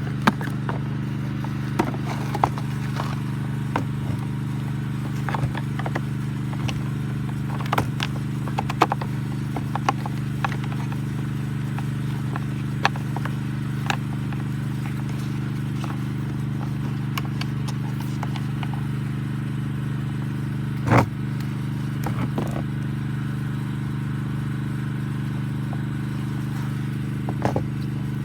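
Suzuki Address V50 moped's 49 cc engine idling steadily, with scattered clicks and knocks from handling, and one louder knock about two thirds of the way through.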